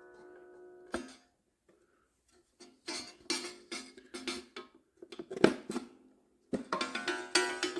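Irregular knocks and clicks of a wooden cuckoo-clock back cover being pressed into place, with the clock's coiled gong ringing out several times as it is bumped, no longer damped by its transport paper.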